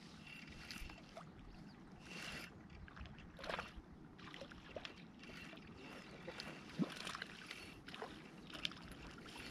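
Old Daiwa 2500 spinning reel being cranked to reel in a hooked fish, its gears whirring and clicking faintly, with small water splashes as the fish nears the surface.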